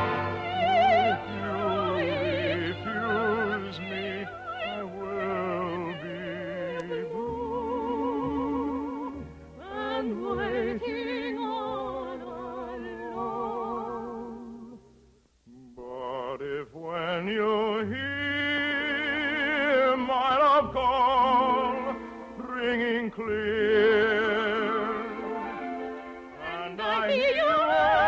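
Operatic singing with heavy vibrato over orchestral accompaniment, from an old radio broadcast. The music thins to almost nothing for a moment about halfway through, then the singing resumes.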